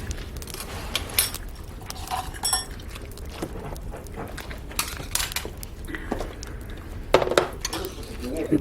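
Metal utensils clinking and tapping against pots and dishes: scattered sharp clinks, a few of them ringing briefly.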